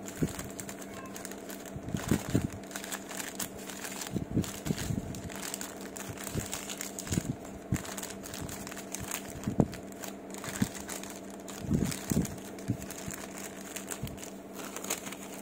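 Paper burger wrapper rustling and crinkling in irregular bursts as it is folded by hand around a sandwich, over a steady low hum.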